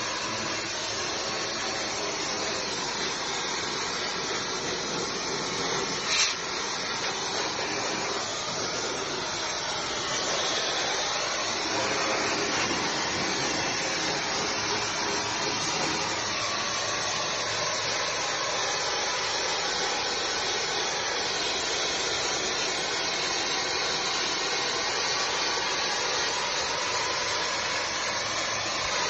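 Steady hiss of a brick-cleaning spray lance jetting onto brickwork, with one brief sharp knock about six seconds in.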